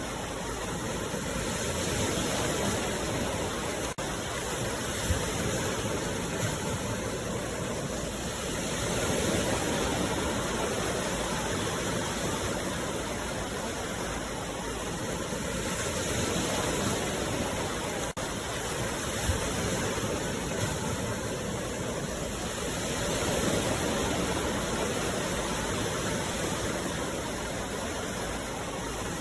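Sea waves, a continuous rush of surf that swells and eases every several seconds.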